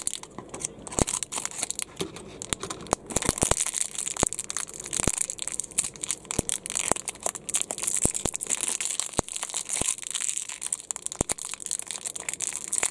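Crinkly pink plastic blind-bag wrapper from an LOL Surprise doll capsule being crumpled and peeled apart by hand: a steady run of rustling and crinkling with many sharp crackles.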